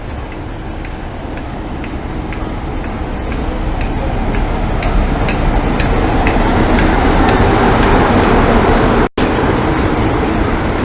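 Class 47 diesel locomotive's Sulzer twelve-cylinder engine running as the locomotive passes close by, growing louder, with a regular light ticking about twice a second. The sound cuts out for an instant near the end, then the engine continues.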